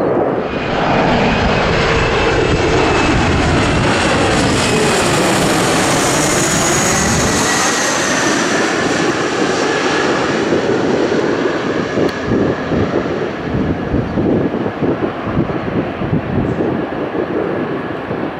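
Small twin rear-engine jet passing low overhead on landing approach: a loud jet rush with a high turbine whine that falls in pitch as it goes by, easing after about eight seconds. Gusty wind buffets the microphone in the second half.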